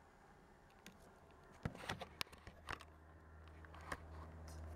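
Handling noise from the camera being moved: a handful of sharp clicks and knocks between about one and a half and three seconds in, and one more near four seconds. A low steady hum comes in at the first knock and slowly grows louder.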